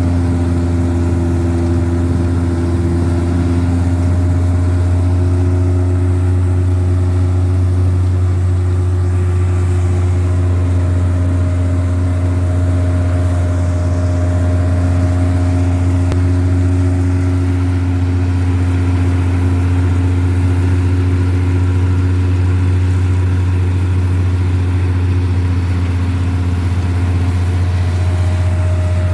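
Wheat combine harvester running steadily: a loud, unbroken low engine drone with a few steady higher machine tones over it.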